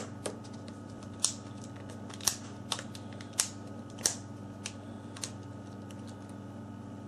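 Sharp, irregular clicks, about eight over five seconds, from small phone parts being handled and snapped together during reassembly of a Samsung Galaxy S4, over a steady low hum.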